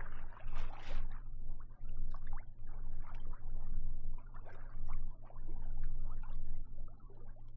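Water gurgling and splashing against the hull of a sailing yacht moving slowly under sail, over a steady low hum.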